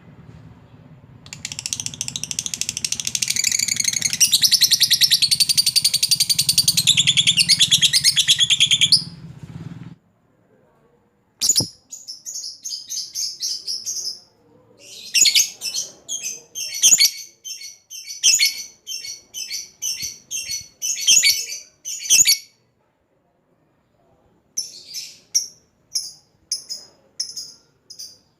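Lovebird giving a long unbroken chattering trill, the 'ngekek panjang' used to call out rival birds, for about eight seconds. After a short pause come bouts of rapid, clipped high chirps with brief breaks between them.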